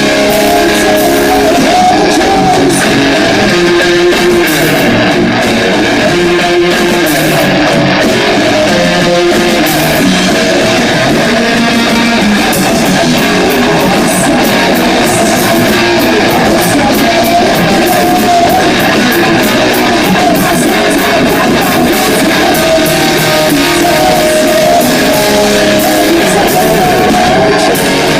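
Rock band playing a song live, loud and dense, with guitar to the fore.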